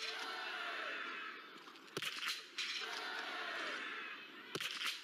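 Two sharp shots from small-bore .22 biathlon rifles fired in the prone position, about two and a half seconds apart, over steady crowd noise from the stands.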